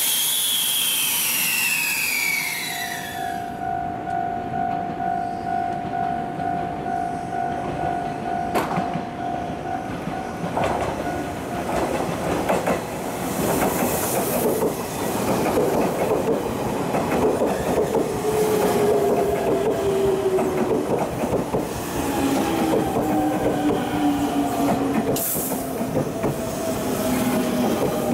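A 383-series Wide View Shinano electric express train runs along the platform with rail clatter and wheel noise. It gives a few sharp clanks, and in the second half its motor whine falls slowly in pitch as the train slows.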